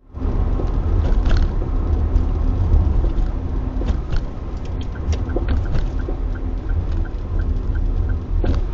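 Car driving with a steady low road rumble, broken by several sharp knocks from the front suspension, which began knocking within a week of new struts, springs, control arms and stabilizer links being fitted. From about halfway on a faint, even ticking runs about three times a second.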